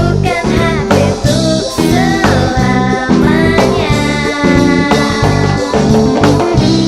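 Rock band playing a song live, with guitars and drums keeping a steady beat.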